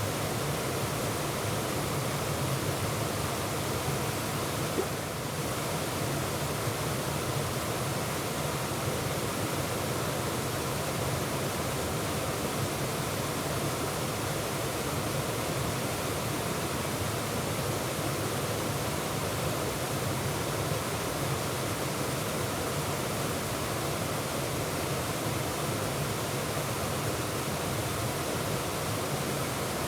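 Waterfall: a steady, unbroken rush of falling water, heard from close by in the middle of the falls.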